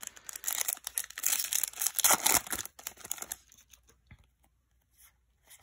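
Foil Yu-Gi-Oh! booster pack wrapper crinkling and tearing open for about three seconds, then a few faint clicks as the cards are handled.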